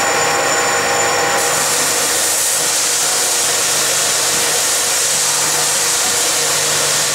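Wintersteiger micro ski-tuning machine running steadily as a snowboard is fed through it for base grinding. A loud, even whirring hiss, with a faint hum in the first second and a half, after which the hiss turns harsher.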